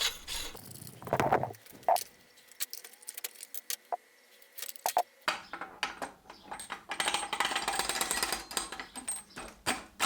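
Metal gearbox parts being handled during hand reassembly: scattered clinks and taps, a faint ringing after one of them, then a couple of seconds of scraping and rattling metal near the end.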